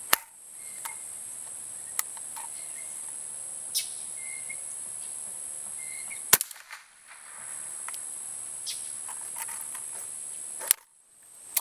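A Rossi Matched Pair single-shot with its .22 LR barrel: several sharp cracks and clicks as it is loaded, cocked and fired, the loudest about six seconds in and near the end. A steady high-pitched insect drone runs underneath.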